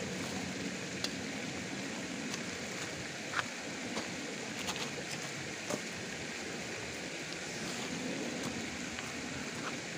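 River water flowing steadily, with a few light clicks and knocks scattered through the first half.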